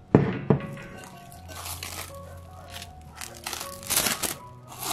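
Plastic cling film crinkling and crackling as it is peeled off a glass bowl. There is a sharp, loud crackle right at the start, then irregular crinkles with another cluster about four seconds in.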